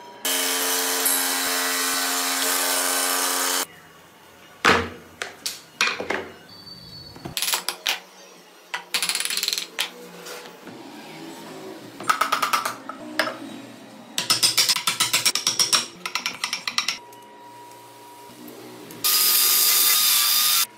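Woodworking tool sounds on a block of wood. A power tool runs steadily with a whine for about three seconds, followed by sharp knocks, short bursts of cutting and rapid repeated scraping strokes. Near the end an angle grinder runs steadily, sanding the wood.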